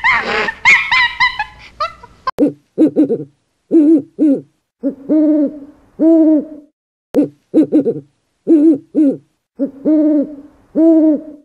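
A chimpanzee calling, with a loud scream, stops about two seconds in. Then an owl hoots over and over in low hoots, some in quick runs and some longer and arched, with short silences between the groups.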